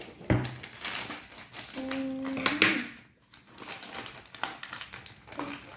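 Plastic snack-pouch wrapper crinkling and crackling in irregular bursts as it is handled and opened.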